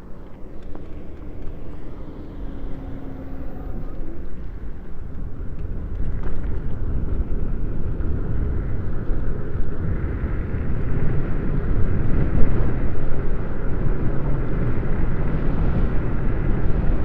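Wind rushing over the microphone while riding a 72-volt electric hub-motor mini bike, growing louder as the ride goes on.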